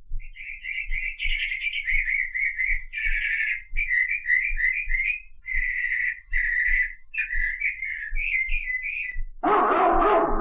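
Bird-like whistled chirps and warbling trills in short runs, played from a vinyl record, over soft repeated low thumps. About nine seconds in, the band comes in.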